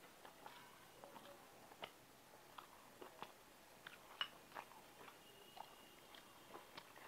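Faint close-up chewing: soft, irregular wet mouth clicks of someone eating rice with banana-flower and prawn curry, picked up close by a clip-on microphone, with one sharper click about four seconds in.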